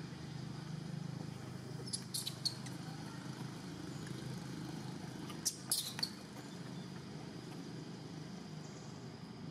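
Steady low outdoor rumble with two brief clusters of sharp crackles, about two seconds in and again near six seconds.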